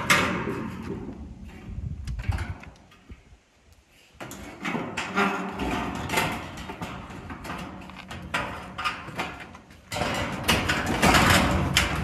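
Corrugated steel siding panels scraping and rattling against each other as they are slid and fitted into place, with metallic clanks and clicks. The sound drops away briefly about three seconds in and is loudest near the end.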